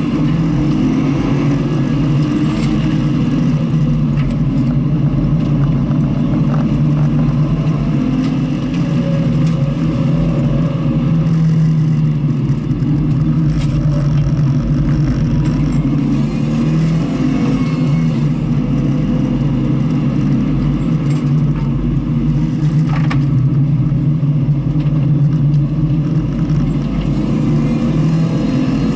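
Vehicle engine running continuously, its pitch staying fairly even with small rises and dips rather than hard revving, heard close up as if from on board.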